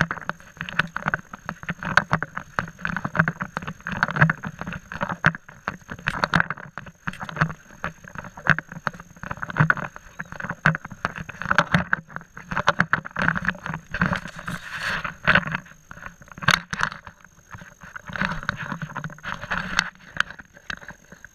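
Handling noise from an action camera carried while walking: a steady run of knocks, bumps and rubbing from the swinging camera, with footsteps. A faint steady high whine sits underneath.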